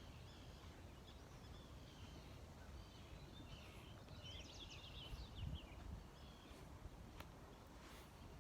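Faint wild birdsong: scattered high chirps with a quick run of chirps about four seconds in, over a low steady outdoor rumble.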